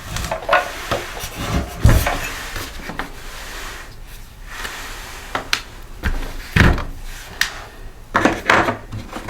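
Hand tools and small engine parts knocking, clinking and rubbing as they are handled during an engine teardown, with sharper knocks about two seconds in and again past the middle.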